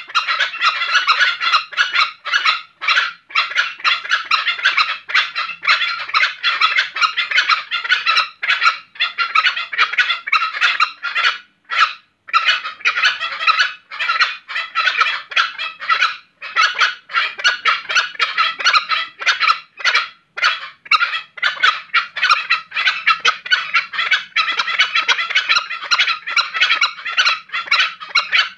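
Green junglefowl calling in a long, dense run of rapid pulsed calls, with brief breaks about twelve and twenty seconds in. This is the distinctive call the birds give in the breeding season.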